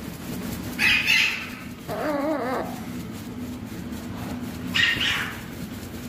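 Green-winged macaws calling: a harsh squawk about a second in, a wavering call at about two seconds, and another short squawk near the end.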